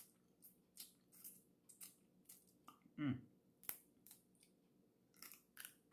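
Faint wet mouth smacks and small clicks of eating blue crab by hand, sucking meat from the fingers and picking at the shell, scattered irregularly. A brief low hummed "mm" falls in pitch about three seconds in.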